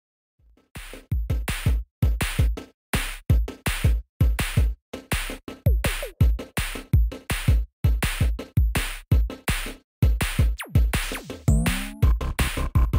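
Electronic background music with a fast drum-machine beat, starting just under a second in.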